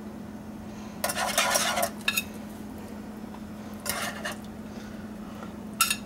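Metal kitchen utensils, including a whisk, scraping and clinking against a saucepan in a few short bursts, over a steady low hum.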